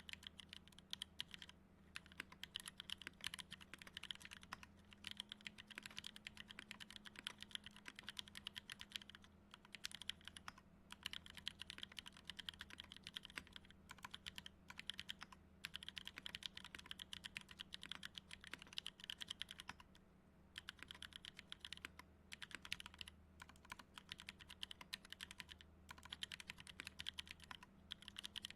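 Typing on a custom mechanical keyboard with lubed NovelKeys Kailh Cream linear switches, 70 g TX springs and an FR4 plate: fast, steady keystrokes with a few brief pauses.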